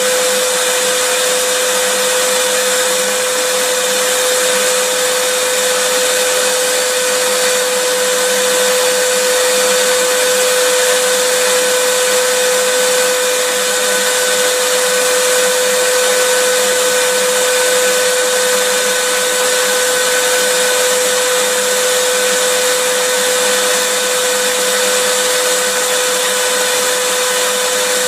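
Vacuum cleaner running steadily: a constant airy rush with a steady motor whine over it, unchanging throughout.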